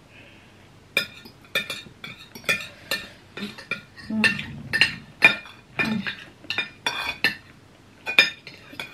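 Metal cutlery clinking and scraping against ceramic dinner plates while eating. After about a second, a string of sharp ringing clinks, roughly two a second, keeps on to the end.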